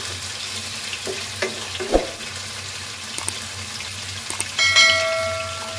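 Chicken pieces sizzling in oil in a non-stick wok, with a spatula stirring and knocking against the pan a couple of times in the first two seconds. Near the end a click and then a bell-like chime, the sound effect of a subscribe-button overlay, ring out louder than the frying and fade over a second or so.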